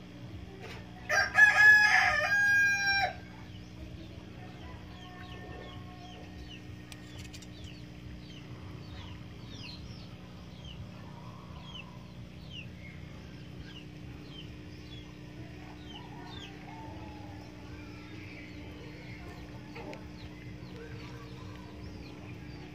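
A rooster crows once, about a second in, a loud call of about two seconds. A steady low hum runs underneath, and later come faint, short, high chirps repeated for several seconds.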